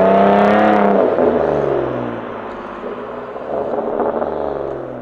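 2018 Nissan Maxima's 3.5-litre V6, breathing through a Stillen dry-flow intake, accelerating away. The engine note climbs in pitch, then drops about a second in and fades as the car pulls off down the street, with a smaller swell of engine sound around four seconds in.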